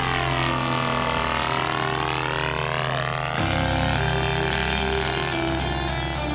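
Engine of a radio-controlled scale model airplane running steadily as it flies past overhead, its tone sweeping down and back up during the pass, with music underneath.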